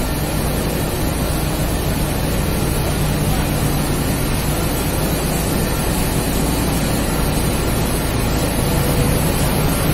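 Kraft paper-making machine running: a steady, loud machine noise with a constant low hum underneath, unchanging throughout.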